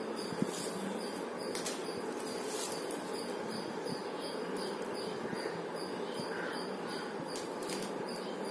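Plastic koodai wire strands rustling and clicking now and then as they are pulled and evened through a woven plastic-wire basket, over a steady background hiss with a cricket chirping at a regular pace.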